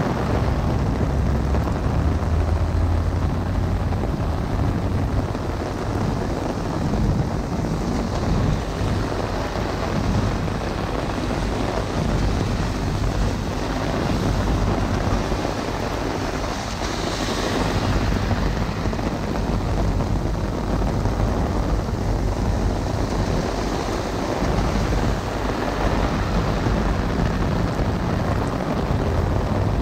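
Heavy rain drumming on a golf umbrella held just above the camera, with rain hissing on the wet street and wind noise on the microphone, steady throughout. A low roll of thunder comes in near the end.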